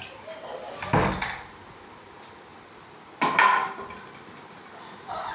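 Two loud bangs of household objects being struck, about a second in and again just after three seconds; the second rings briefly.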